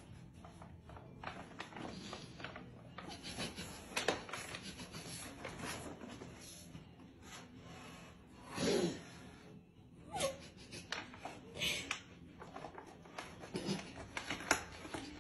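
A cat dragging a bag of dry cat food across a tiled floor: the bag rustles and scrapes on and off, with one louder brief sound a little past the middle.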